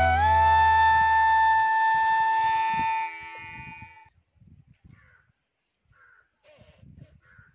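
Background music: a flute holding one long note over a low drone, which stops about three seconds in and is gone a second later. After it come a few faint short calls and light knocks.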